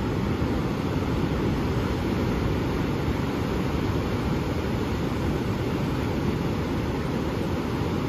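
Pacific Ocean surf breaking and washing up the beach, a steady, deep rush of waves with no breaks.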